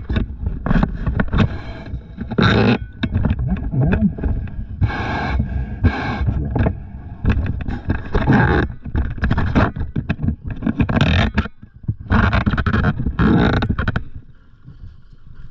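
Handling noise: the diver's suit, gloves and gear rubbing and scraping against the body-worn camera in irregular bursts as he shifts about and handles his equipment. It eases off near the end.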